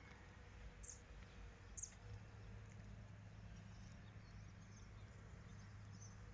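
Near silence: a steady low hum with a few faint, short, high bird chirps, the clearest about one and two seconds in.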